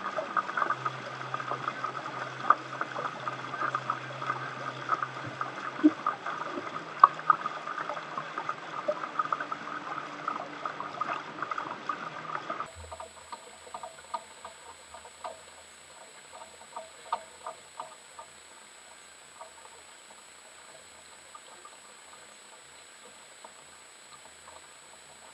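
Water splashing and trickling against the hulls of a sailing catamaran under way. About halfway through it drops to a quieter lapping with scattered small ticks.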